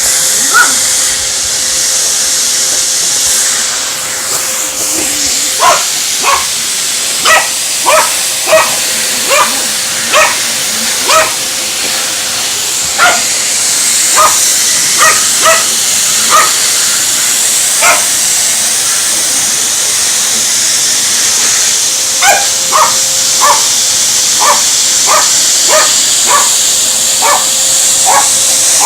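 A dog barks sharply and repeatedly at a running vacuum cleaner, in bouts of about one to two barks a second with short pauses between. Under the barks runs the vacuum's steady motor hiss and whine.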